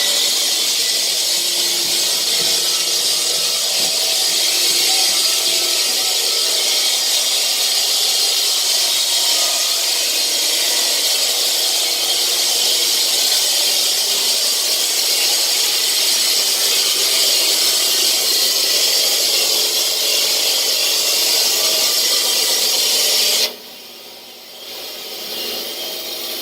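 Loud, steady power-tool noise from breaking out a concrete floor to reach the underground drain lines. It cuts off suddenly near the end, leaving quieter machine noise.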